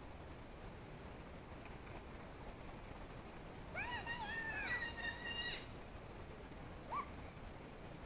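A distant high-pitched voice calling out: a run of rising-and-falling cries lasting about two seconds near the middle, then one short rising call near the end, over a steady faint hiss.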